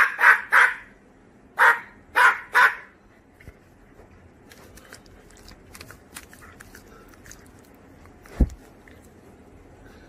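A puppy barking: six sharp barks in two sets of three, then faint scattered clicks and a single thump about eight and a half seconds in.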